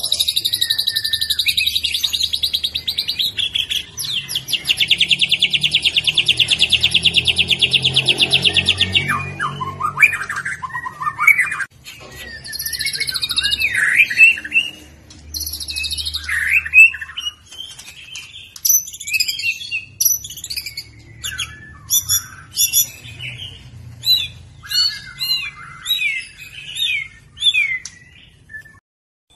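Young white-rumped shama (murai batu) singing loudly: a long, very rapid buzzing trill for the first nine seconds or so, broken briefly around four seconds, then a run of varied whistled phrases, sweeps and sharp notes.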